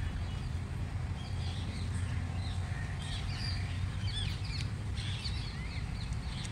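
Birds chirping, with many short rising and falling calls from about a second in, over a steady low rumble.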